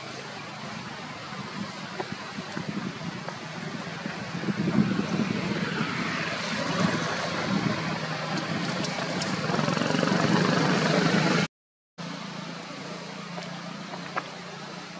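A motor vehicle on the road, its engine and tyre noise building over several seconds as it approaches, then cutting off suddenly, with a low steady hum underneath.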